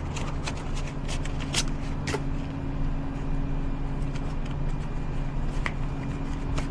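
A steady low mechanical hum, like an idling engine or running machinery, with a few sharp clicks and rustles scattered through it.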